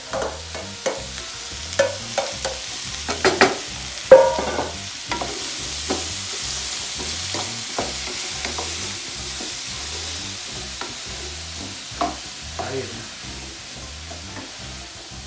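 Chopped vegetables, freshly tipped into hot oil, sizzling in a steel pan while a wooden spoon stirs and knocks against the pan. The knocks and scrapes come thick in the first few seconds. The sizzle swells about five seconds in and then slowly dies down.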